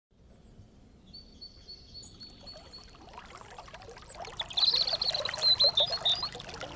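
Outdoor nature ambience fading in: many short frog-like calls and a high, wavering bird-like trill, with a trickle of water, growing louder throughout.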